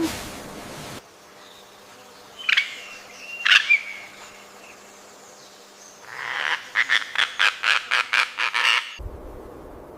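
An animal's calls: two short, sharp calls a second apart, then a rapid series of about a dozen pulsed notes at roughly four a second, which stops abruptly near the end.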